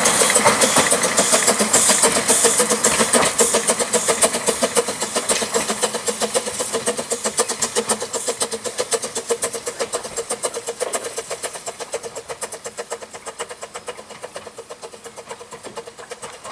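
Ffestiniog Railway double Fairlie steam locomotive moving off, a fast, even beat of exhaust chuffs that fades steadily as it draws away.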